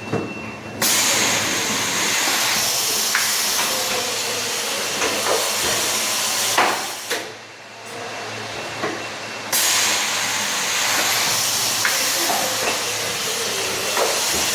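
Automatic case erector working through a carton: a loud steady air hiss starts about a second in and runs for about six seconds, drops away for a couple of seconds, then comes back, with sharp mechanical clacks at intervals.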